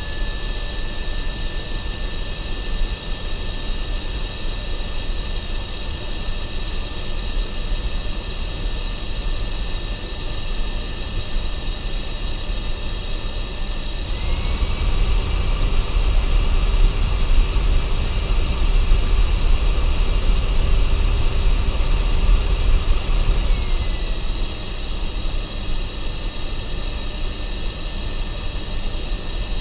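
Henry vacuum cleaner running steadily at normal suction with a motor whine. About halfway through it switches to high-suction mode, running louder with a higher-pitched whine. About ten seconds later it drops back to normal suction.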